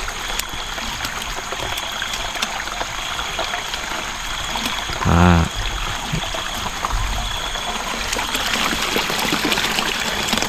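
Rain runoff trickling and running steadily at a field drain after heavy rain, with small wet rustles and splashes as a net bag is worked over a bucket of water.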